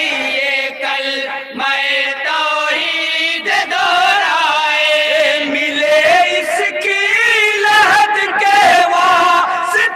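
A group of men singing an Urdu naat together without instruments, holding long notes for the first few seconds and then moving into a wavering, ornamented melody.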